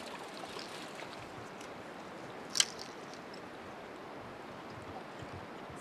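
Steady rush of river water, with one sharp click about two and a half seconds in.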